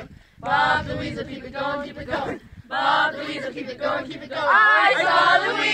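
A group of voices singing a chant together in short phrases, growing louder and fuller near the end.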